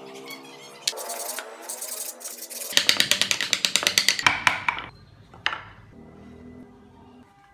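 Hand carving tool cutting into a block of wood in a fast run of sharp scraping strokes, about ten a second at its busiest, dying away after about five seconds; a single light wooden knock follows.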